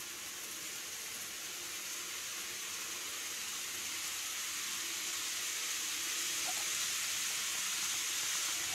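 A steady hiss that slowly grows louder, with a faint low hum beneath it.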